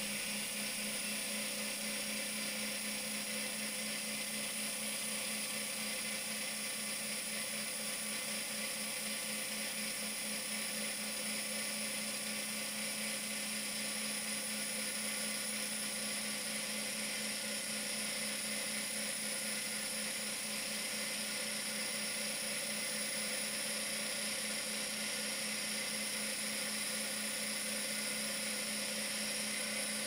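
Wood lathe running steadily: an even motor hum with a high whine over it, unchanging throughout, with no sound of a tool cutting.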